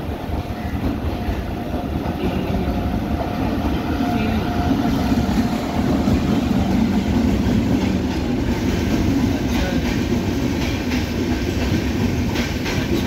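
Express train hauled by a WAP-7 electric locomotive rolling past on arrival. A steady low rumble grows louder as the locomotive passes about six seconds in. Then come regular wheel clicks over the rail joints as the coaches go by.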